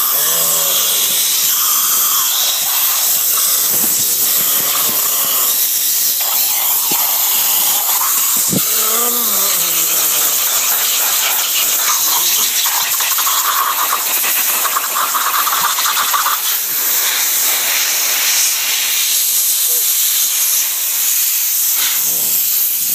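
Compressed air from an air compressor blow gun hissing steadily and loudly as it is blasted into a person's mouth and face.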